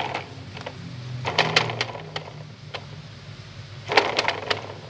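Plastic spinning disc on a baby walker's toy tray, spun by hand: three bursts of rapid plastic clicking and clattering, over a steady low hum.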